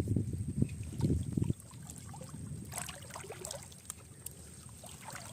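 Water sloshing and trickling in shallow river water, with loud irregular low thumps for the first second and a half, then quieter with scattered small clicks.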